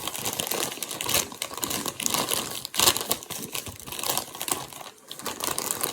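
Crinkling and crackling of a PopCorners chip bag being handled, dense and irregular.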